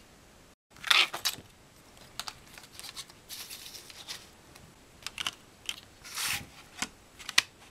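Hands handling a CD single's clear plastic jewel case: a rustle about a second in, then a run of small plastic clicks, taps and scrapes, and sharp clicks as fingers work the disc on the tray's centre hub, the sharpest near the end.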